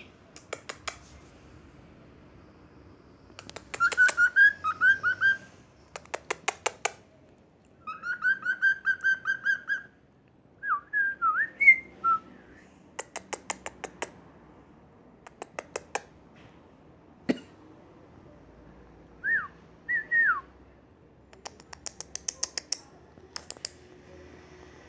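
Pet cockatiel whistling a siren imitation in short bursts of fast warbling, up-and-down notes. Trains of sharp clicks come between the bursts.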